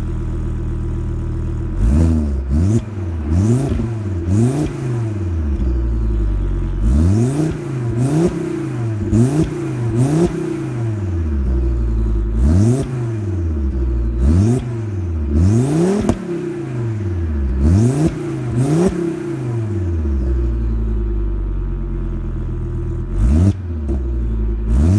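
Volvo S60R's turbocharged five-cylinder engine, with a custom downpipe and BSR exhaust, heard at the tailpipe: idling, then free-revved over and over in about a dozen quick blips that rise and fall in pitch, with a short stretch of idle near the end. The engine is cold, so the revs are kept to 4500 rpm at most.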